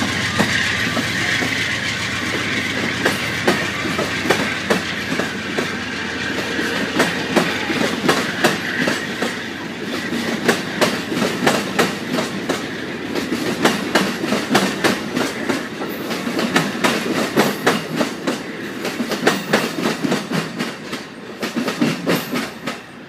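Amtrak passenger train of double-deck Superliner cars rolling past, its wheels clacking in a quick steady rhythm over rail joints above a rushing roll noise. The sound drops away near the end as the last car goes by.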